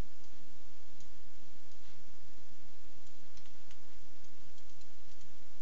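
Steady hiss and low hum of the recording's noise floor, with a few faint computer mouse clicks.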